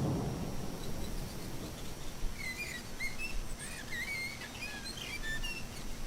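Small birds chirping: a quick run of short, bending chirps starting about two seconds in and thinning out near the end, over a steady low outdoor rumble.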